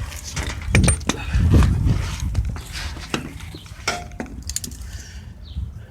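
Scattered clicks and metallic clinks of shock absorber hardware being handled, one clink briefly ringing near the end, over a low rumble.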